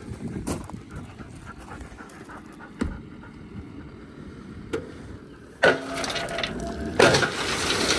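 Knocks of a boot and hand on the steel tailgate of a raised dump trailer. Then, a little past halfway, the load of crushed rock breaks loose and starts pouring out with a sudden rush, and it comes louder again near the end.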